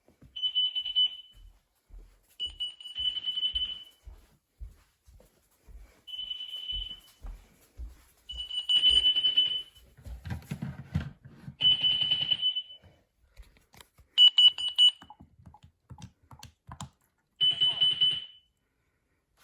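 Carbon monoxide alarm test sounding: a high, steady electronic beep in bursts of about a second, coming every two to three seconds at uneven spacing, until it is silenced.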